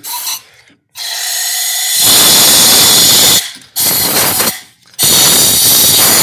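Compressed-air blow gun hissing in three loud bursts, the first starting about a second in and the longest, as it blows brake cleaner and debris out of a freshly tapped cylinder head bolt hole in the engine block to dry it before the thread insert goes in.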